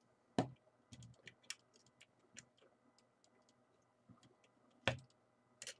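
Scattered small clicks and knocks of parts being handled and fitted into a LOMO Lubitel 166 camera body as its cleaned focusing lens is put back in place. Two louder knocks stand out, one just after the start and one about five seconds in.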